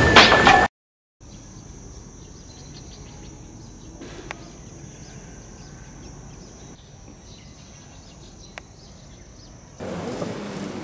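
Music cuts off just under a second in. After a moment of dead silence comes faint outdoor ambience with a steady high-pitched hiss and two sharp clicks. Near the end it gives way to the louder room noise of a large hall.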